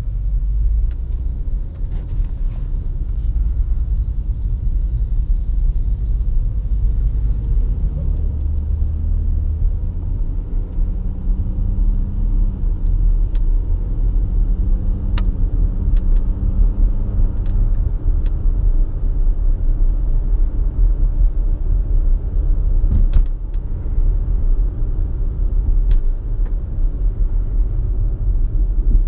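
Inside the cabin of an Audi A6 3.0 TDI quattro with its turbodiesel V6, driving slowly at about 10 to 40 km/h: a steady low rumble of engine and tyres on the road, with a few short clicks.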